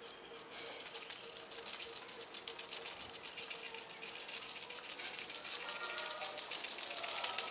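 Pink string-wand cat toy rattling with a fast, dense clicking as it is jiggled and batted. The clicking cuts in suddenly and runs on steadily.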